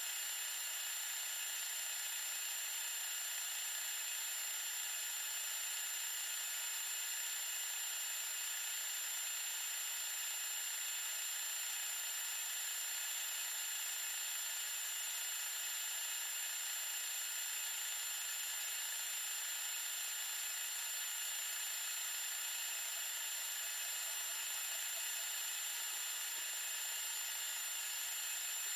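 Life-sized LEGO vacuum engine running steadily on suction from a vacuum hose. It makes an even, high, whirring mechanical noise with no low end, and a thin high whine runs through it without change.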